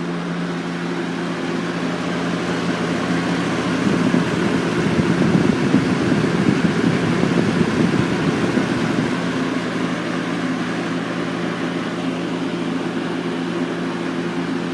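Super 3713 20-inch box fan, with a Marco shaded-pole motor and white blades, running steadily on high speed: a rush of moving air over a low motor hum. For several seconds in the middle the air noise grows louder and rougher, then settles back.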